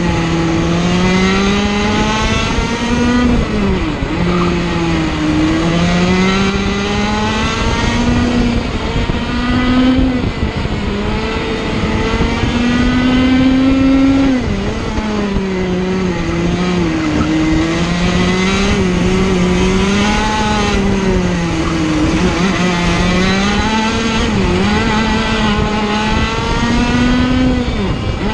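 Sirio TT85 100cc two-stroke kart engine at racing revs, heard from on board the kart. Its pitch climbs steadily along each straight and drops sharply under braking into the corners, over and over, with a longer climb in the middle before a sudden drop about halfway through.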